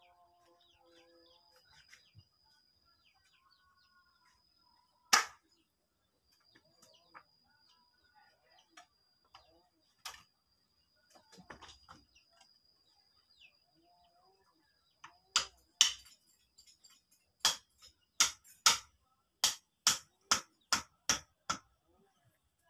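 Sharp knocks of something being struck by hand, at first singly, then a quick series of about a dozen at roughly two a second in the second half. A faint, thin high steady tone runs underneath.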